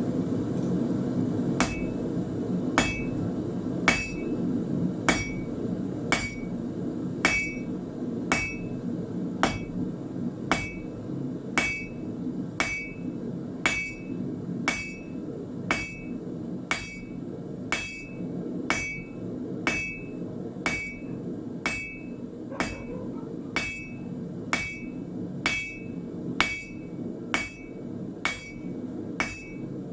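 Blacksmith's hammer striking iron bar on an anvil in steady blows, about one a second, each with a short ringing note. The blows start about a second and a half in, over a steady low rush.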